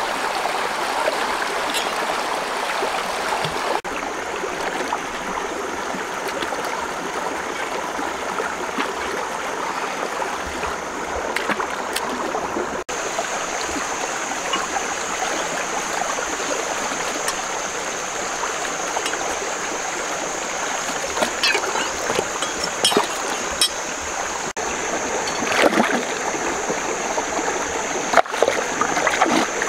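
Shallow rocky stream running over a small cascade, a steady rush of water, with scattered splashes as someone wades and reaches into it, several in the last few seconds.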